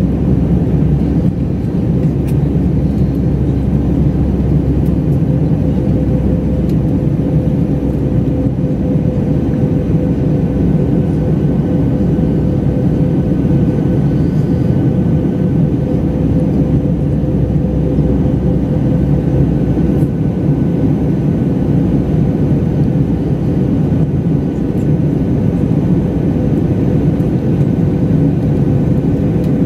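Steady in-flight cabin noise of an Airbus A319-100 heard from inside the cabin: a dense low rumble of engines and rushing air, with a steady mid-pitched hum running through it.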